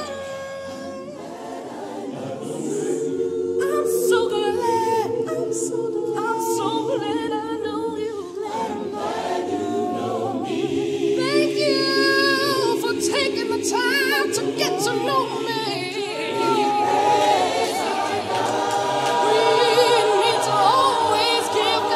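Choir singing a hymn a cappella, voices only with no instruments, in long held notes with vibrato.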